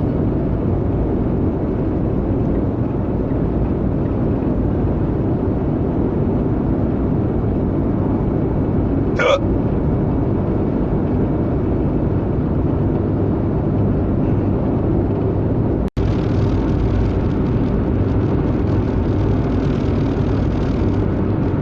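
Steady rumble of a car's interior on the move, with a single short hiccup from a person about nine seconds in. The sound cuts out for an instant about two thirds of the way through.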